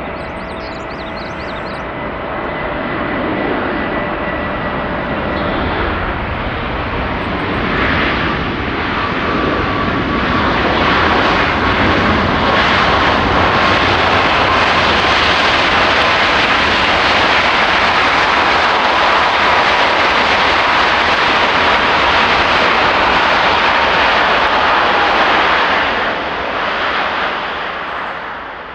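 Jet engine noise from a Boeing 737 MAX 8's CFM LEAP-1B turbofans as the airliner goes by. A rush of noise builds over several seconds and holds loud for about fifteen seconds, with a whine that slowly falls in pitch. It drops away near the end.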